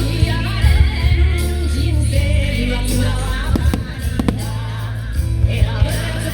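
A pop song with singing over a steady bass line, with a few sharp cracks about midway through.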